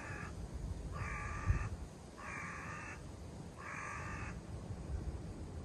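A crow cawing four times at even intervals, each caw lasting under a second, the first already under way. Underneath is a low rumble of wind on the microphone, with a brief bump about a second and a half in.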